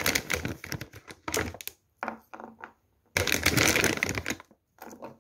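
Shelled walnuts being handled and put down on a wooden cutting board: several short bursts of noise, the longest lasting over a second about three seconds in.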